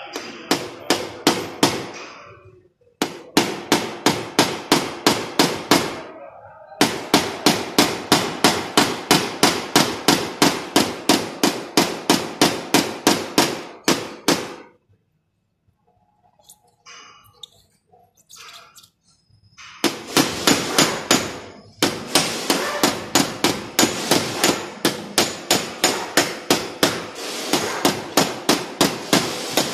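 Small hammer tapping rapidly and evenly on a car's body panel, about four light strikes a second in long runs, with a pause of a few seconds in the middle: tapping out a dent in paintless dent repair.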